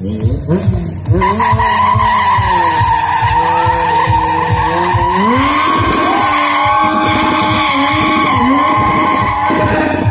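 A stunt motorcycle's engine running at high revs that rise and fall, over a long, steady tyre squeal that starts about a second in. A regular low thudding runs underneath.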